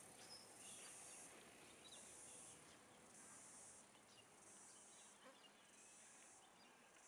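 Faint high-pitched insect chorus pulsing on and off about once a second, with a few faint bird chirps.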